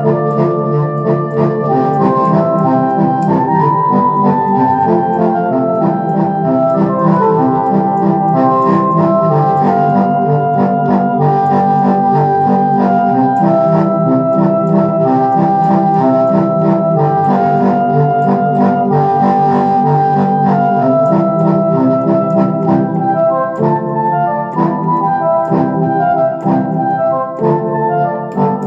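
Electronic arranger keyboard played with both hands: a melody line over held chords. Near the end the chords turn short and detached.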